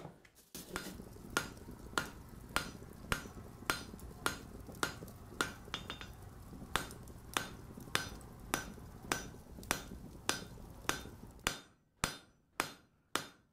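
Steady, evenly paced hammer blows ringing on an anvil, a little under two strikes a second, over a low steady hum. Near the end the hum stops and the last few strikes ring out on their own.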